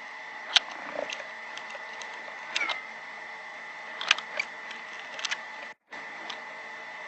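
Small clicks and taps of tools and parts being handled while wiring the grounds on an electric guitar pickguard, a handful of sharp ticks at irregular intervals over a steady high-pitched tone.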